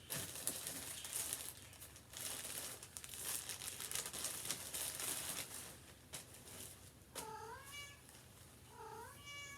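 Clothing and plastic packaging rustling and crinkling as garments are handled. Near the end a cat meows twice, short rising-then-falling calls.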